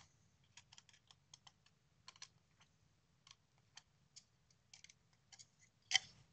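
Faint, irregular small clicks of needle-nose pliers and a small screwdriver working metal standoffs and screws tight on a Proxmark3 circuit board, with one louder click near the end.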